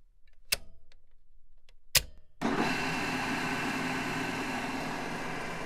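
Two sharp clicks, then a machine starts up about two seconds in and runs steadily with a dense whirring noise and a few steady tones.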